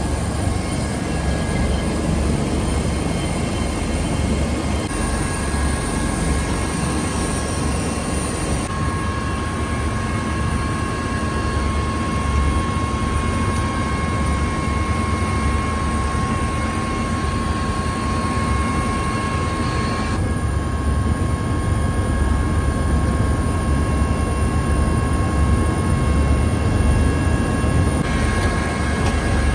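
Helicopter cabin noise: a steady, loud drone of engine and rotor with a thin steady whine above it. The tone shifts suddenly a few times.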